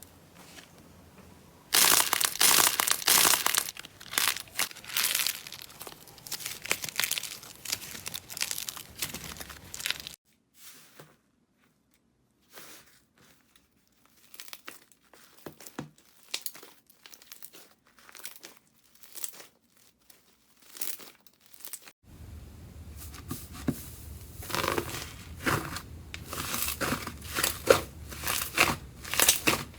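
Slime being worked by hand, giving crinkly crackling and tearing sounds. Dense crackling starts about two seconds in, thins to sparse separate pops and crackles through the middle, then turns dense again in the last third.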